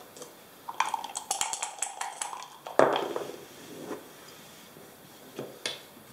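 Two backgammon dice rattled with a ringing clatter for about two seconds, then thrown onto the board with a sharp knock and a brief tumbling rattle. A couple of clicks near the end as a checker is moved on the board.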